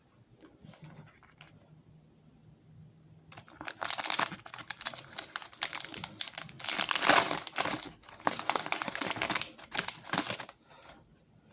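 Foil wrapper of a Pokémon Sword and Shield booster pack crinkling and tearing as it is opened by hand, a dense run of crackling that starts about three seconds in and stops shortly before the end.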